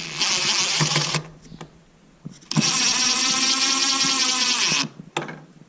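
Power drill running in two short bursts, the second about two seconds long with a steady whine.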